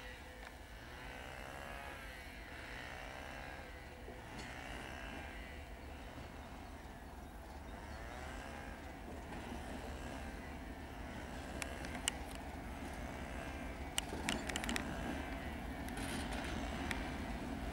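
DM62 diesel locomotive's 14D40 two-stroke V12 engine running as it approaches, its wavering drone growing steadily louder. A few sharp clicks come in the last few seconds.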